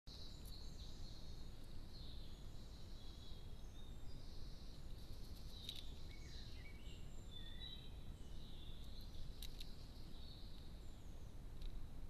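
Small birds singing and chirping in the background, a run of high, short calls and trills over a steady low background rumble. A couple of sharp clicks come near the middle.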